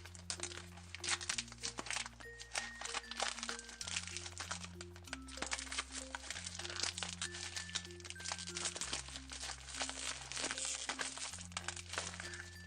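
Packaging of a Shopkins shopping cart surprise being crinkled and torn open, with dense irregular crackling throughout, over background music with a simple repeating bass line.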